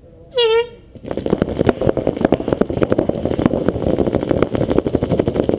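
Many paintball markers firing rapidly at the break of a speedball point, a dense rattle of shots that starts about a second in and keeps going. Just before it comes a brief horn-like blast.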